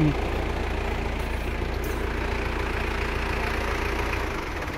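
Pickup truck engine idling with a steady low hum that drops away near the end.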